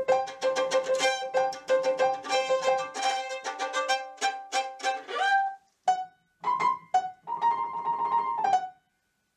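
Violin and piano music: a fast run of short, crisp notes, then a few separate notes and a final held note that slides down and ends the piece about a second before the end.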